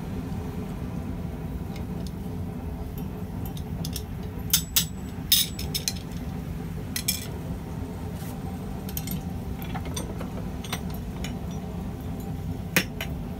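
Scattered metal-on-metal clinks and knocks from a blacksmith's twisting wrench and steel tubing being worked in a vise, a cluster of them about four to seven seconds in and one sharp clink near the end, over a steady low hum.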